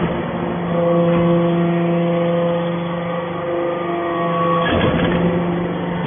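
Steel powder briquetting press plant running: a steady machine hum with several held tones from its motor and hydraulic drive. A brief burst of clattering noise comes about five seconds in.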